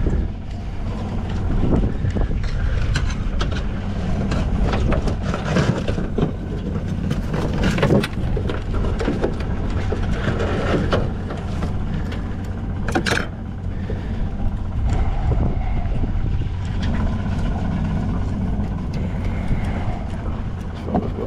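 A small boat's outboard motor running steadily under way, with a heavy low rumble and scattered clicks and knocks.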